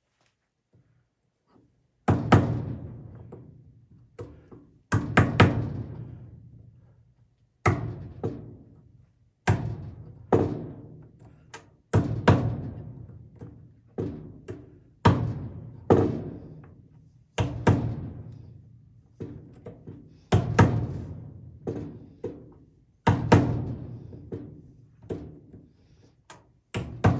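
Hammer striking a chisel to cut a recess for a bolt head into a hole-saw plug: sharp impacts every second or two, often in quick pairs or triples, each ringing out, starting about two seconds in.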